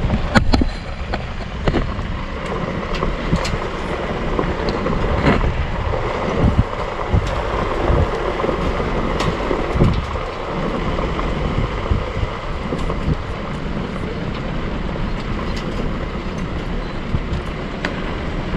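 A ute driving along a rough dirt track: steady engine and tyre rumble with wind on the microphone and occasional knocks and rattles over bumps.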